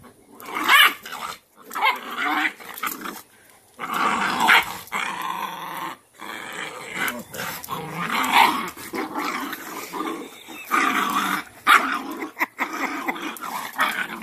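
Cane Corso mother and puppy growling and yelping in a scuffle as she pins the puppy down to discipline it, in repeated bouts with short breaks.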